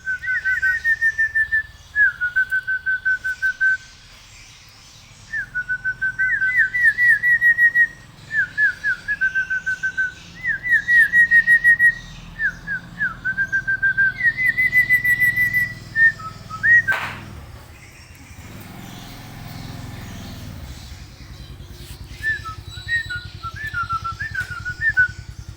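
Hill myna whistling: phrase after phrase of fast, repeated whistled notes, some held level and some sliding upward, with a short pause a few seconds in. A sharp knock cuts in about two-thirds of the way through, and softer whistles follow near the end.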